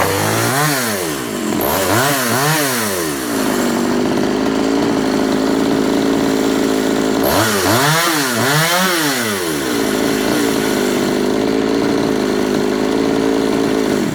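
Efco 134 top-handle two-stroke chainsaw firing up and running, its throttle blipped in a few quick rising-and-falling revs just after it catches and again about seven seconds in, settling to a steady fast idle between. It cuts off suddenly at the end. Its mixture has been richened slightly to stop it running lean.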